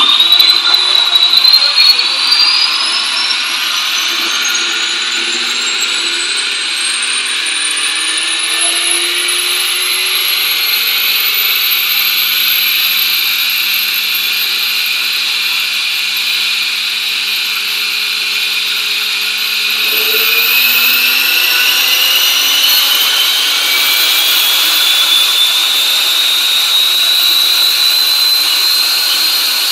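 Shelby GT500's supercharged V8 running on a chassis dyno: a high supercharger whine climbs steadily in pitch for about twelve seconds over a rushing hiss, then holds. About two-thirds of the way through it drops suddenly and starts climbing again.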